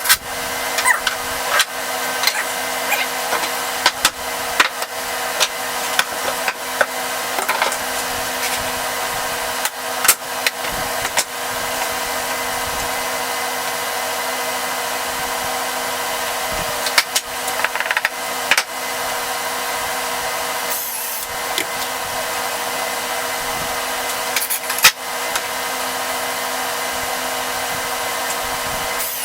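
A small electric motor, such as a power tool or shop vacuum, runs with a steady hum throughout, while wooden pieces knock and clatter now and then as they are handled.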